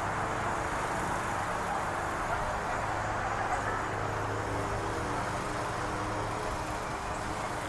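A vehicle running steadily: even engine and road noise with a constant low hum.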